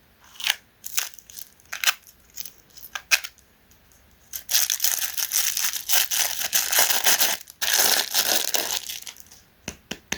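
KitKat chocolate wafer bar crunching: first a run of separate sharp crackles, then about five seconds of dense crunching and crinkling with a brief break in the middle, ending in a couple of small clicks.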